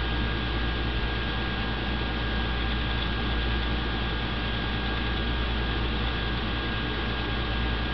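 Steady low mechanical hum and hiss, with a thin constant whine above it.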